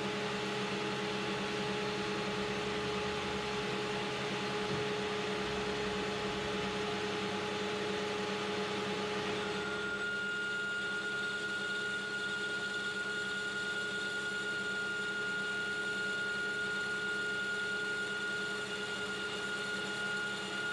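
Metal lathe running under power feed, taking a light finishing cut in a 4140 steel spindle housing: a steady motor and gear hum with a higher whine joining about halfway through.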